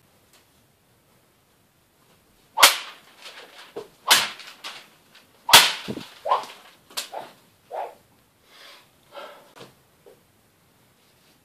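Hanwei Tactical Katana blade swishing through and slicing hanging newspaper: four sharp cuts about a second and a half apart, the first three loudest.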